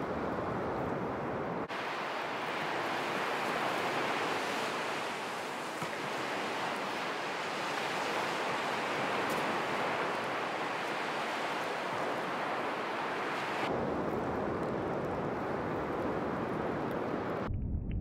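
Ocean surf breaking on the beach, mixed with wind on the microphone: a steady rushing noise. Near the end it turns duller, with a low rumble.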